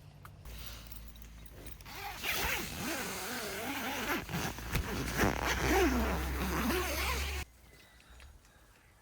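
A zipper being pulled in long strokes, its pitch wavering with the speed of the pull; it starts about two seconds in and cuts off suddenly near the end.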